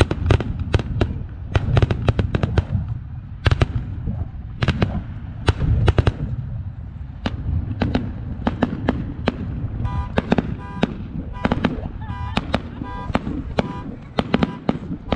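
Aerial fireworks display: a rapid series of sharp bangs and crackles from bursting shells over a continuous low rumble, at times several bangs a second. From about ten seconds in, a short beeping tone repeats over the bangs about twice a second.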